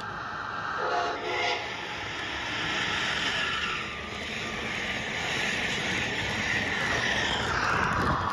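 Motorised LEGO train running on plastic track, a steady whirring motor and wheel clatter that grows louder as the train comes close. A short horn-like tone sounds about a second in.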